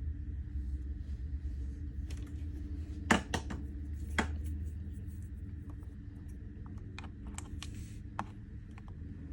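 Scattered clicks and taps from handling a small plastic device, the loudest two about three and four seconds in, over a low steady hum.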